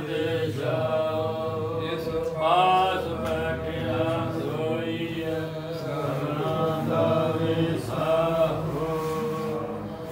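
Sikh devotional hymn (Gurbani) sung as a slow chant, its long notes drawn out and bending in pitch.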